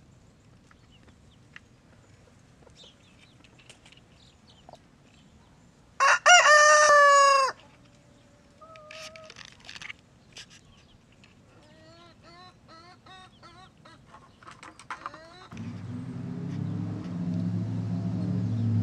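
A rooster crows once, loud, about six seconds in, for about a second and a half. Softer short chicken calls follow, repeating over a few seconds, and a low steady hum comes in near the end.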